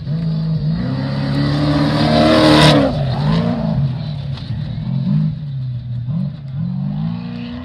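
Off-road race car passing close at speed: the engine grows louder to a rush about two and a half seconds in, then drops in pitch and revs up and down repeatedly as it drives away.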